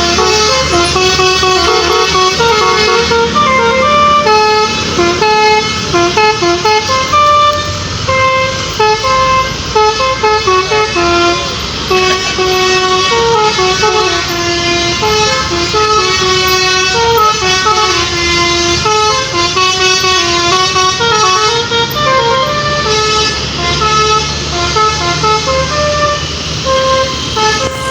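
Tour bus's 'telolet basuri' multi-tone air horn playing a continuous melody of stepped, held notes, over the low rumble of the bus engine running.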